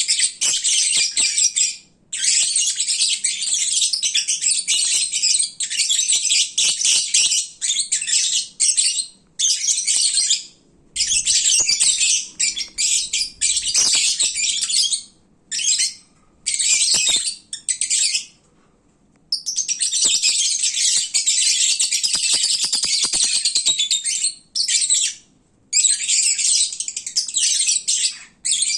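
Lovebirds chattering noisily, a dense high-pitched chirping that comes in bursts of several seconds broken by short pauses. This is the chatter they make when fed and drowsy.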